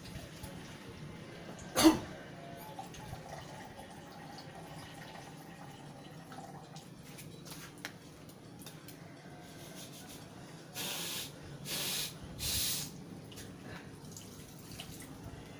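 A person rinsing the nose with plain water over a sink: faint dripping and splashing of water, one sudden loud expulsion through nose or throat about two seconds in, and three short hissing breaths in quick succession near the end.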